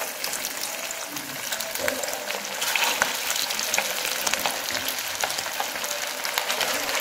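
Chicken-mince gola kababs deep-frying in hot oil in an aluminium pan: a steady sizzle full of fine crackles, which grows a little louder partway through as more kababs go into the oil.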